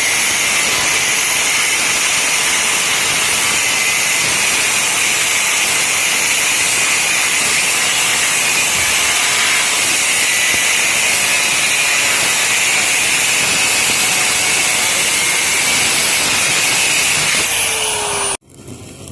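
A power tool cutting metal: a loud, steady, high-pitched grinding noise that cuts off abruptly near the end.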